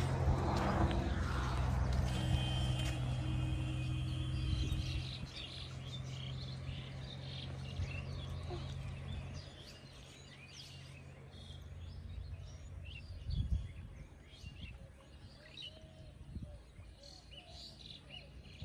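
Small birds chirping and calling over and over in the open air, over a low steady hum that fades away about five seconds in. A single low thump comes about thirteen seconds in.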